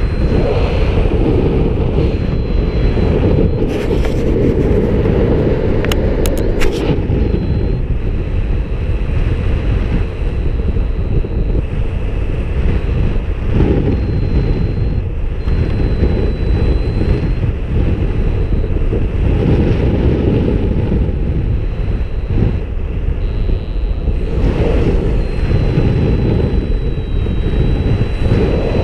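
Wind rushing steadily over the camera microphone in flight under a paraglider wing. There are a few sharp clicks about four seconds and six seconds in, and a faint thin high tone that comes and goes.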